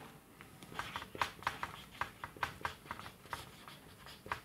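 Marker pen writing on a whiteboard: a quick run of short strokes, several each second.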